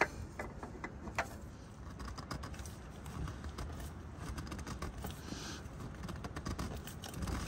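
Faint, scattered small clicks and light rattling as a new spin-on oil filter is threaded on and hand-tightened.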